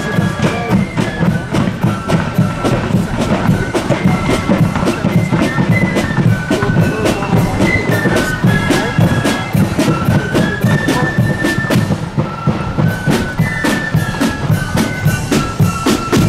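Marching flute band playing a tune: flutes carry a stepping melody over fast side-drum strokes and a bass drum beat.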